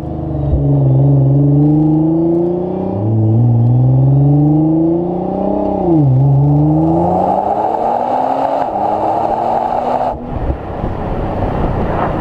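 Exhaust of a 2015 Nissan GT-R's twin-turbo V6, heard at the tailpipes while driving: the engine note climbs in pitch, drops back and climbs again twice, as in upshifts under acceleration. Then it fades into a steady rushing noise, with a single knock near the end.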